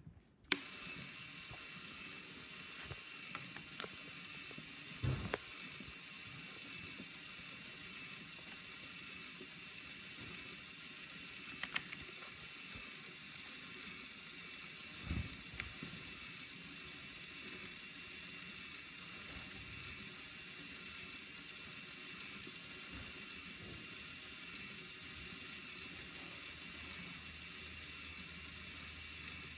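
Electric LEGO motors driving a model car wash's mechanisms, switched on with a click about half a second in and then running with a steady high whir, with a few soft knocks from the moving parts.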